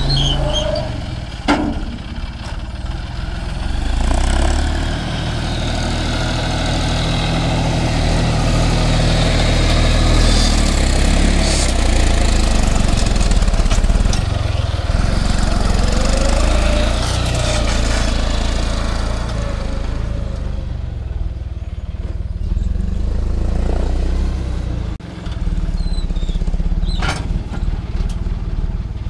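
John Deere 5310 tractor's three-cylinder diesel engine running under load as its front loader digs, lifts and dumps sand; the engine works harder through the middle and eases off about twenty seconds in. A sharp knock comes about a second and a half in and another near the end.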